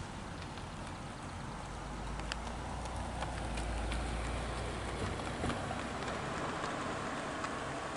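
Steady outdoor background noise: an even hiss over a low rumble that swells in the middle, with scattered faint clicks.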